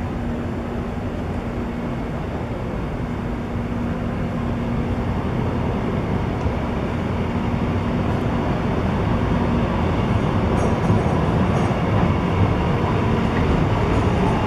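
Alstom Citadis low-floor tram approaching slowly along street track, its running noise and motor hum growing steadily louder.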